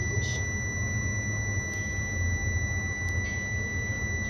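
Steady high-pitched electrical whine, one unwavering tone with fainter overtones, over a steady low hum, heard inside a tower crane's operator cab.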